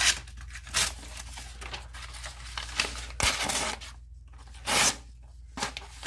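Rough Ryder Tadpole's small pocketknife blade slicing and tearing through a sheet of notebook paper in several short rasping strokes, with the paper rustling as it is handled. The blade is sharp but struggles to start the cut.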